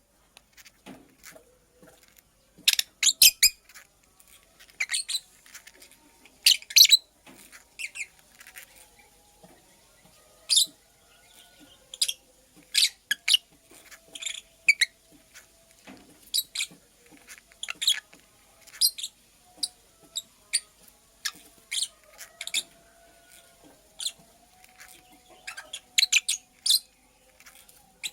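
Lovebird chirping: short, sharp, high-pitched chirps in irregular bursts, some coming in quick twos and threes.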